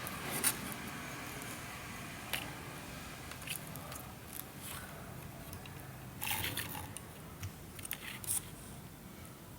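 Handling noise: scattered light clicks and short rustles as an amplifier circuit board kit is picked up and turned over by hand, with a small cluster of them about six seconds in.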